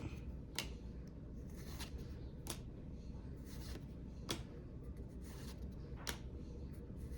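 Pokémon trading cards being flipped and slid off the stack one at a time, each giving a short, crisp snap, irregularly about once a second.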